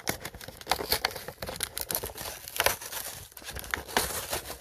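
Toy packaging being opened by hand: plastic and cardboard crinkling and tearing, with many sharp, irregular crackles and snaps.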